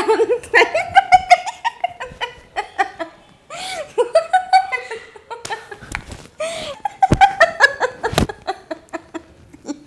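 A woman and a man laughing hard together in fits of giggles, with a few dull thumps in the second half.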